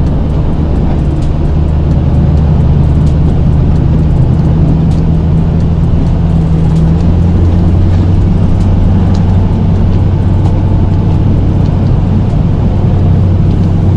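Snow-plow truck's engine heard from inside the cab, running steadily while pushing a load of snow with the plow; its low note shifts about halfway through.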